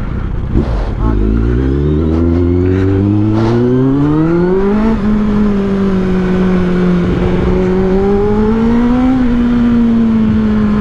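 Motorcycle engine heard from the rider's seat, revving up steadily through about four seconds as it pulls away, then running at a nearly even pitch at cruising speed with a slight swell near the end. There is wind rush under it.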